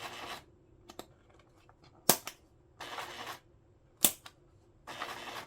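Triumph-Adler 8212PD printing calculator being worked while trying to get it to print: two sharp, loud clacks about two seconds apart and a few fainter clicks, between short hissing bursts of noise.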